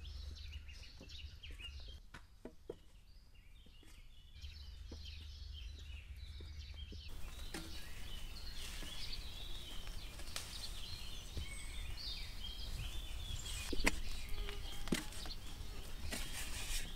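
Birds chirping in the background over soft, scattered knocks and rustles of dough being kneaded by hand in a metal bowl, with a few sharper taps about two-thirds of the way through.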